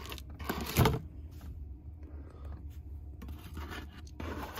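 A metal spoon scraping and knocking against a pie and its cardboard takeaway box, with one louder knock about a second in, over a low steady hum.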